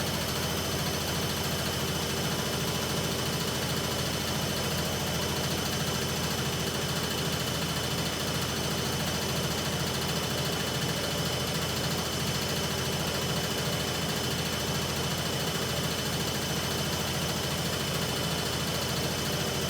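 Hoover Ecologic Computer washing machine on its spin-only programme, the drum and motor spinning steadily with a constant whine.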